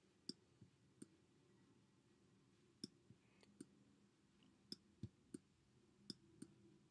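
Faint, irregular clicks of a stylus tapping a pen tablet or screen as words are handwritten, about a dozen short taps at uneven spacing over near silence.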